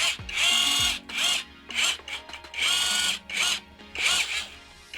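Cordless 18V impact driver spinning free with no load, triggered in bursts: two runs of about half a second and several short blips of its single-speed motor whine. It is a free-run power check of a tool that doesn't feel that powerful.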